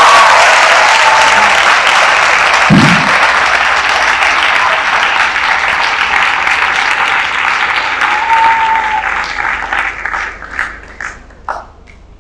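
Audience applauding, the clapping dying away into a few scattered claps near the end.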